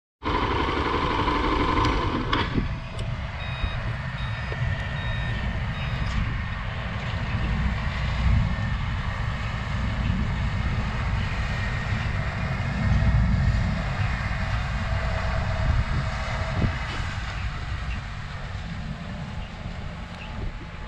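Sugarcane harvesting machinery working in the field: a steady heavy diesel drone, with a reversing alarm beeping for a few seconds about three seconds in.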